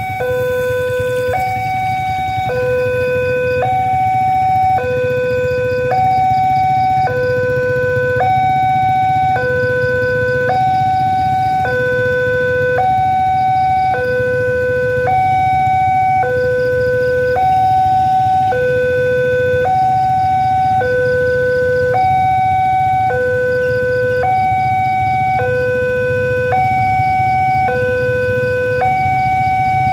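Railway level-crossing warning alarm sounding while the crossing is closed: an electronic two-tone alarm alternating steadily between a lower and a higher tone, about a second each, warning that a train is approaching.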